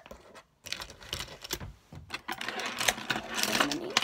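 Plastic gel pens clicking and rattling against each other as they are handled and sorted in a pencil case. There are many quick clicks, getting busier with a rustle toward the end.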